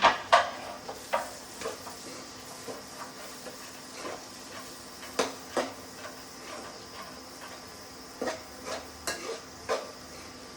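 A utensil stirring food frying in butter in a pan: irregular knocks and scrapes against the pan, loudest at the start, over a light steady sizzle.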